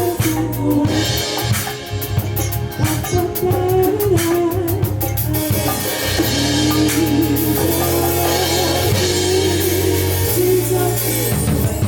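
A band playing a song during a sound check: a singer's voice over drum kit and held bass notes.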